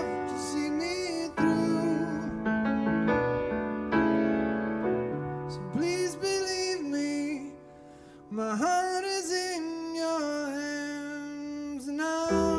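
A man singing to his own upright piano accompaniment: sustained chords under a melodic vocal line that comes and goes between phrases. There is a short lull about two-thirds of the way through before voice and piano come back in together.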